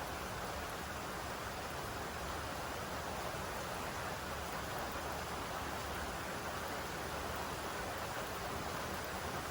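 Steady rainfall, an even hiss of rain with no breaks or separate drops standing out.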